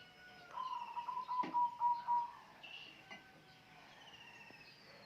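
Small birds chirping, with one steady whistled note held for nearly two seconds, starting about half a second in, and a short knock about a second and a half in.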